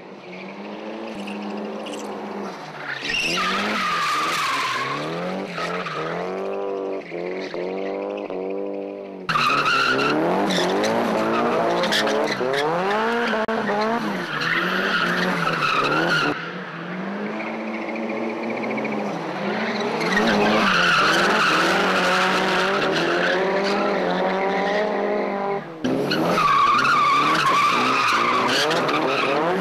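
Drift cars sliding through a tight corner one after another: engines revving up and down in repeated surges while the tyres squeal. The sound jumps abruptly in level several times.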